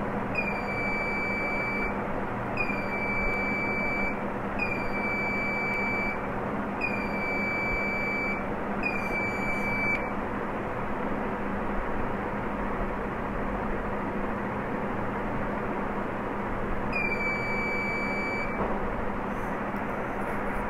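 An electronic beeper sounding long, even beeps, about five in a row spaced roughly two seconds apart, then a pause and one more beep later. Under them runs a steady hum of background noise.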